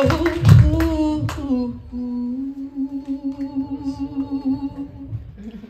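A woman singing unaccompanied into a microphone. She slides between a few notes, then holds one long, wavering note that ends shortly before the close. There is a low thump about half a second in.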